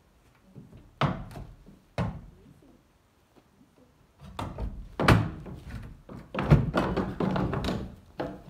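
A pony's hooves thudding on a pickup truck's tailgate and bed as she is pushed up into it: two single thunks about a second apart, then a longer run of thumps and shuffling that is the loudest part.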